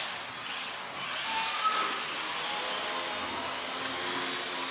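Small electric indoor RC airplanes' motors and propellers whining as they fly, the pitch shifting as the throttle changes and the planes pass.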